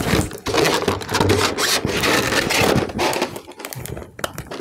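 Handling noise from lifting a makeup compact out of a cosmetics case: dense rustling and scraping with many small clicks, thinning to a few light clicks in the last second.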